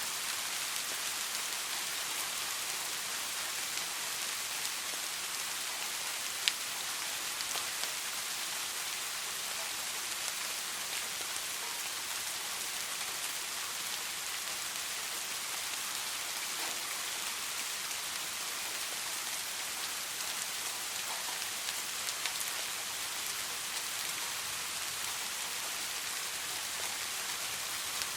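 Steady soft rain falling, an even hiss with scattered drop ticks and one sharper drip about six seconds in.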